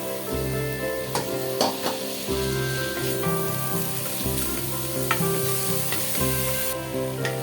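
Food sizzling in a hot pan while it is stirred, with a few sharp clicks of a utensil against the pan, over background music.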